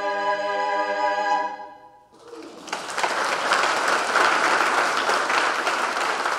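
Women's choir holding the song's final chord, which dies away about two seconds in; then the congregation breaks into applause that builds and carries on.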